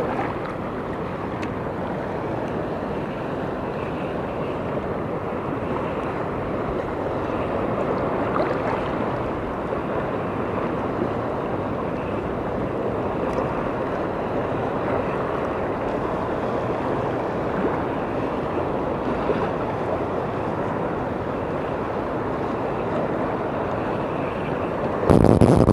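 Steady wash of calm, shallow sea water with wind on the microphone. A louder sound breaks in just before the end.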